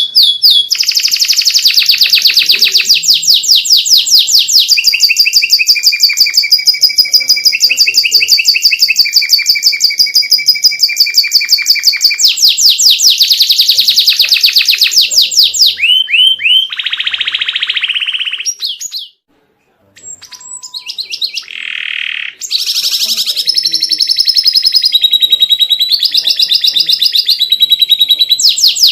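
Domestic canary singing a long, varied song of very fast, high-pitched trills and rolling phrases. The song breaks off for about a second a little past the middle, then resumes.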